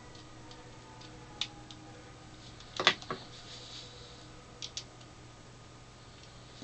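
Small scattered clicks and taps of a small screwdriver and a small metal part being handled, with a louder clatter of several clicks about three seconds in. A faint steady hum lies underneath.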